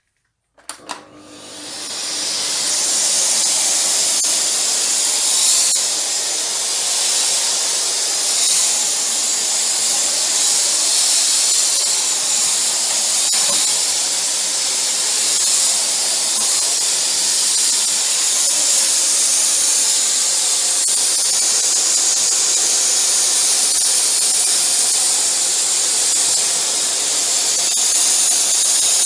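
Vacuum cleaner switched on with a few clicks, its motor spinning up over about a second and then running steadily with a strong high hiss.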